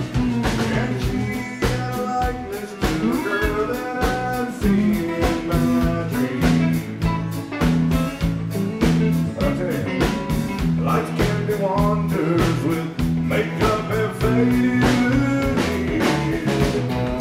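Live country band playing with a steady drum beat, strummed acoustic guitar and electric guitar.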